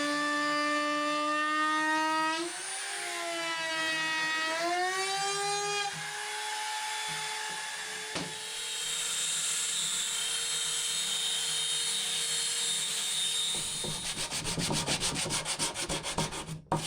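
Cordless drill-driver whining as it backs screws out of wooden steps, its pitch dipping and rising with the trigger for a few seconds, then running on more quietly. There is one sharp click midway, and rapid pulsing near the end.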